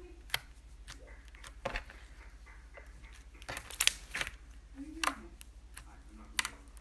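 Slime being handled, giving scattered sharp clicks and pops, a few close together near the middle.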